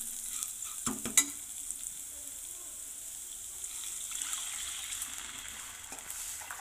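Sliced onions, green chillies and curry leaves sizzling in hot oil in a pan as a steel spoon stirs them. A steady high hiss runs throughout, with a couple of sharp clicks of the spoon against the pan about a second in.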